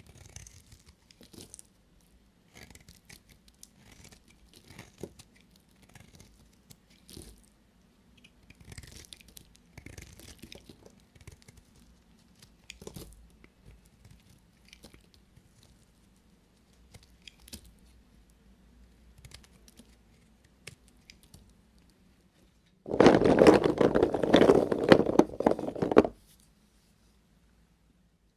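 A knife cutting dry soap: faint scattered crackles and small snaps for most of the stretch, then a loud, dense crunching cut lasting about three seconds near the end.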